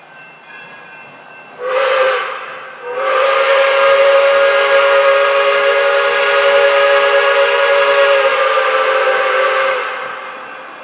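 Steam whistle of Pere Marquette 1225, a 2-8-4 Berkshire steam locomotive, blowing one short blast about two seconds in, then one long chord of several tones held for about seven seconds before fading off.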